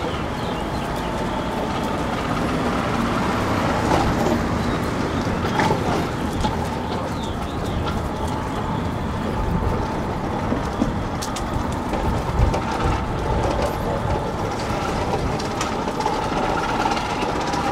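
Steady street noise: a low rumble of traffic with a few faint clicks.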